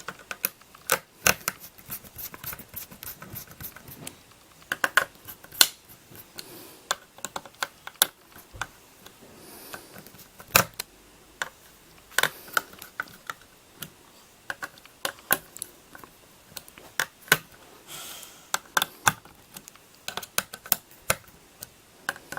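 Irregular small clicks, taps and knocks of a screwdriver and small metal parts while a graphics card's cooler is screwed back down and the card is reassembled, a few of them sharper with a short ring.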